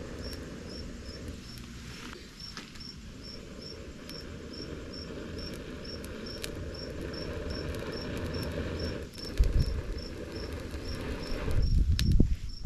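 Crickets chirping steadily, about two to three chirps a second, over a low rushing of breath blown onto smouldering campfire coals to coax a flame, which swells into heavy gusts near the end.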